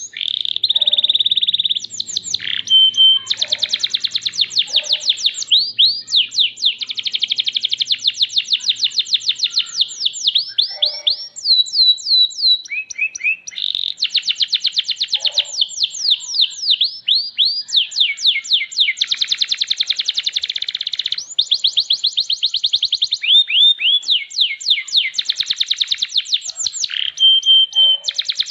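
Domestic canary singing a long, fast song of rapid trills, each made of quickly repeated sweeping notes, broken only by brief pauses.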